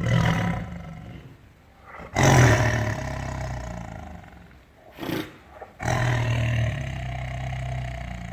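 Tiger roaring: a roar at the start, a long loud one about two seconds in that trails off, a brief sound near five seconds, and another long roar about six seconds in.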